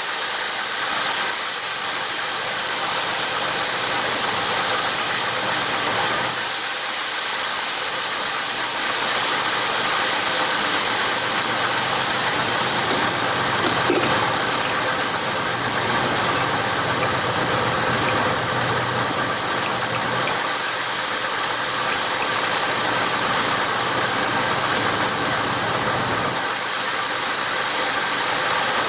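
AMC 401 V8 with an Edelbrock four-barrel carburetor idling steadily and a little high, warmed up to operating temperature and running smoothly now that the water has been blown out of the carburetor.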